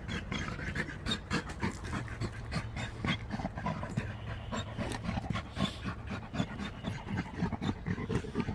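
American Pit Bull Terrier panting hard and fast, a quick steady run of breaths: the dog is worn out from a long spell of digging and hiking.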